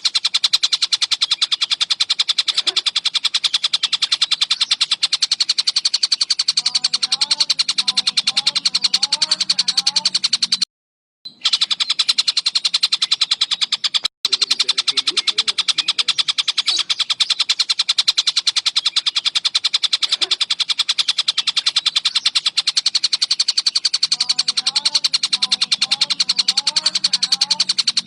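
Tengkek buto kingfisher giving a loud, fast, continuous rattling trill. The trill cuts out completely for about half a second near the middle and again very briefly a few seconds later.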